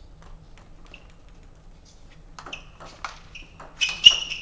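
Table tennis ball clicking off the bats and the table in a quick serve-and-return exchange. Sharp pings come from about halfway through, the loudest near the end.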